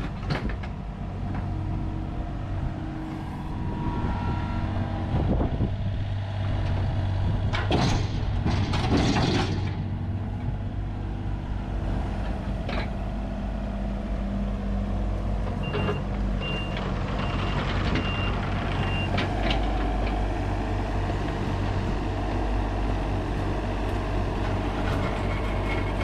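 Kobelco mini excavator's diesel engine running steadily under load as its bucket digs and scrapes out soil and old sidewalk, with a louder scraping stretch about eight to ten seconds in. A short series of reversing beeps sounds from about fifteen to nineteen seconds in.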